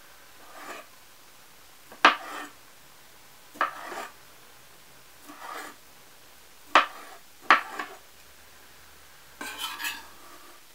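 Chef's knife dicing a sausage on a plastic cutting board: separate sharp knocks of the blade striking the board, irregularly spaced at about one a second, with a quicker run of cuts near the end.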